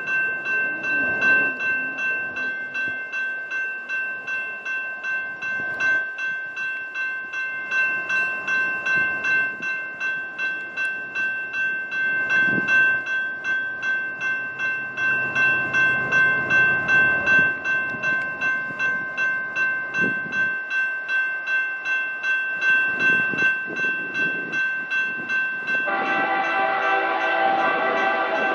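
A grade-crossing warning bell rings on and on at a steady, rapid rhythm, with the faint rumble of an approaching freight train beneath it. Near the end the lead diesel locomotive sounds its multi-note air horn.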